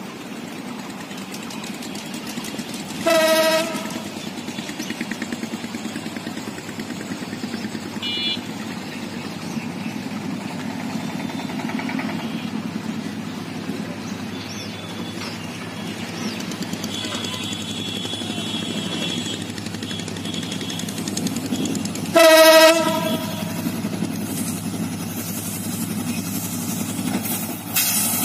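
Approaching EMD diesel-electric locomotive running steadily. It sounds its horn twice in short blasts, about three seconds in and again about twenty-two seconds in. Its engine and rail noise grow louder and then jump suddenly at the very end as it arrives.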